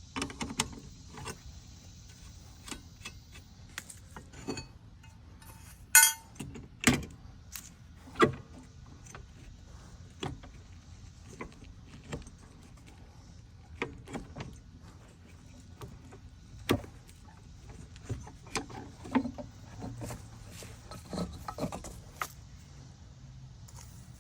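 Hand tools clinking and knocking on the metal of a Scag walk-behind mower while the belt-tension spring and nut are worked off: scattered light metallic clicks, with a few sharper clanks about six to eight seconds in, the first of which rings briefly.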